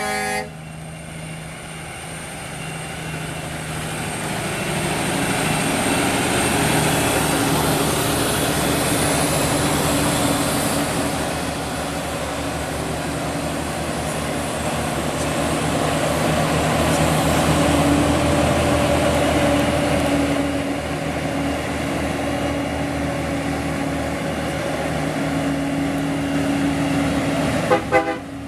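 Heavy diesel tractor-trailer trucks pulling uphill under load, their engines droning steadily and swelling louder twice as trucks pass. An air horn cuts off at the very start.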